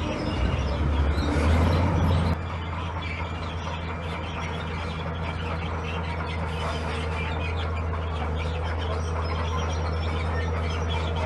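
Heavy earthmoving machine's engine running steadily with a low hum. It is louder for about two seconds, then drops abruptly to a lower, even level.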